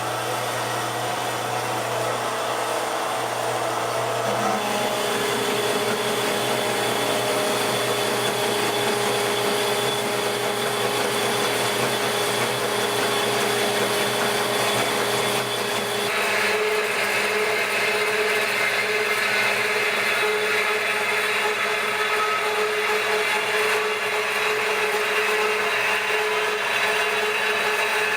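Metal-cutting band saw running and cutting through 6-inch steel pipe: a steady mechanical hum with a whine over it. The tone shifts about four seconds in and again at about sixteen seconds, when a higher hiss comes in.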